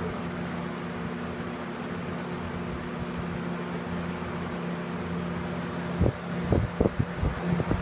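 1987 Lakewood K-223 box fan running steadily on high: an even rush of air over a low, steady motor hum. A few sharp knocks near the end.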